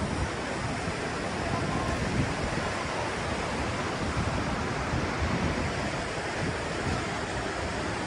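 Steady rush of a rocky mountain stream's white water, with wind buffeting the microphone.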